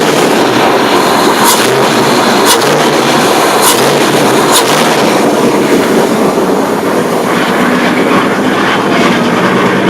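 Ford Explorer's cammed 302 (5.0 L) V8 running loud and steady, with a few sharp clicks in the first half.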